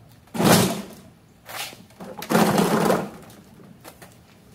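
A tipped-over push mower is set back on its wheels on concrete and the plastic oil drain pan is pulled aside, giving rough scraping and clunking. There are two main noises, each about half a second long: one about half a second in and one around two and a half seconds, with a smaller scrape between them.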